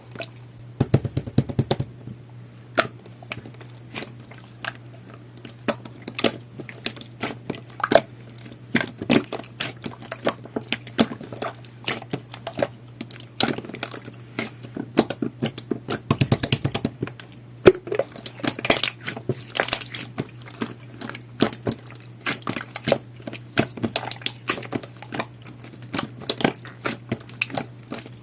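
Red jelly-type slime being pressed and squeezed by hand, giving a dense, irregular run of sticky clicks and small pops, with a few quicker flurries, over a steady low hum.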